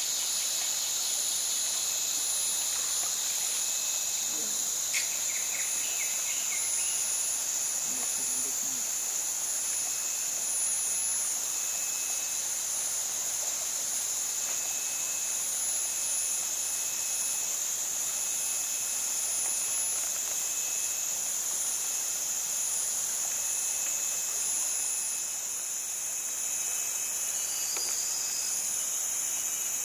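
Steady, high-pitched drone of a tropical forest insect chorus, even throughout.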